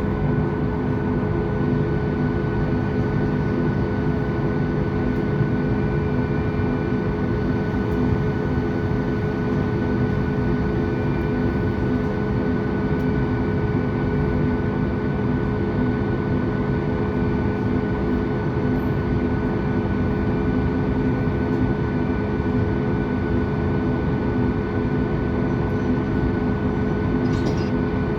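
Cabin noise of a Boeing 737 MAX 8 with its CFM LEAP-1B engines running at idle while taxiing: a steady rumble with a constant hum and a thin whine on top, not changing in level.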